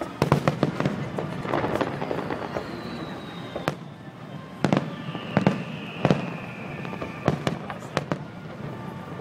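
Aerial fireworks shells bursting overhead: a quick cluster of sharp bangs at the start, then more single bangs spread through the rest. A high tone glides slowly down in pitch twice.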